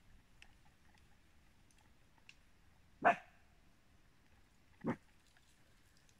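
A dog barks twice, just under two seconds apart; the first bark is louder.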